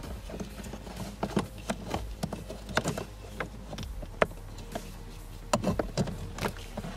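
Scattered plastic clicks and knocks from a code reader's cable and connector being handled and pushed into a car's OBD-II port under the dashboard, over a low steady hum.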